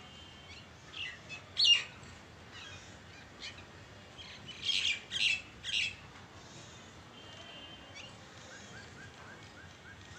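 Common myna calling: harsh, sharp squawks, the loudest about two seconds in and three more in quick succession around five seconds in, then a soft run of short quick notes near the end.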